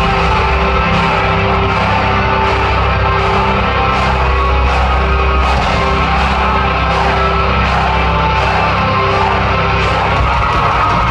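Heavy metal band playing live at full volume, distorted guitars, bass and drums, heard from within the crowd. The full band crashes in heavily at the very start, then drives on with a steady beat.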